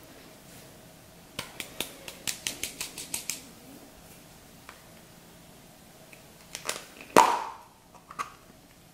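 Clear slime mixed with foam beads being worked by hand: a quick run of sharp crackling clicks about a second and a half in, then a few more clicks and one louder wet crackling squish near the end.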